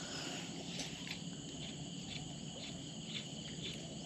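Insects chirping steadily in the surroundings: a faint, even high trill with soft pulses recurring a couple of times a second.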